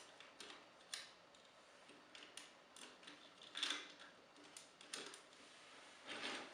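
Scattered faint clicks and taps of a hard plastic transforming robot toy being handled, the loudest cluster about three and a half seconds in.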